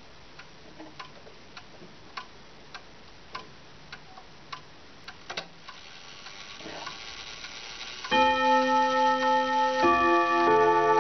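Antique ODO ten-gong chiming wall clock ticking steadily, a little under two ticks a second. A double click and a rising whir follow as the chime train is released. About eight seconds in, the hammers start striking the gong rods in a ringing chime melody.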